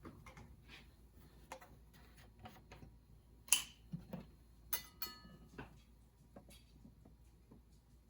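Faint kitchen handling noises: scattered light clicks and clinks of utensils and bottles being handled and set down. The sharpest comes about three and a half seconds in, and one about five seconds in rings briefly.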